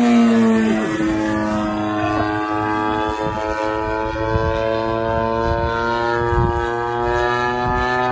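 Radio-controlled model biplane's small piston engine and propeller running steadily in flight, one constant pitched drone that dips slightly in pitch about a second in.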